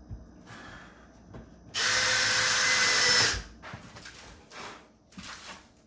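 A power drill runs at a steady speed for about a second and a half, then stops. A few quieter, short sounds follow.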